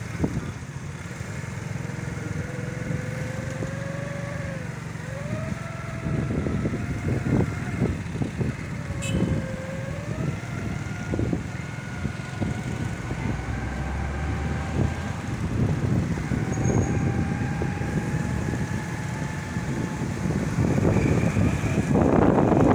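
A moving vehicle's engine and road noise heard from on board. It is a steady rumble with a faint engine tone that dips in pitch twice and rises again as the vehicle slows and picks up speed.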